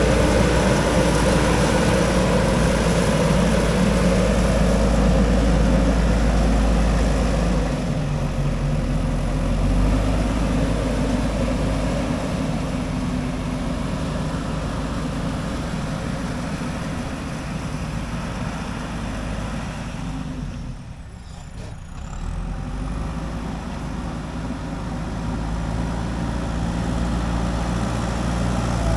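JCB 3DX backhoe loader's diesel engine running as the machine works, loudest for the first several seconds, then easing off. It dips briefly about three-quarters of the way through and builds back up near the end.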